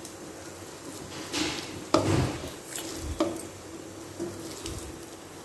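Soft chapati dough being kneaded by hand in a nonstick pan: a few dull thumps and scrapes as the dough is pressed and turned against the pan.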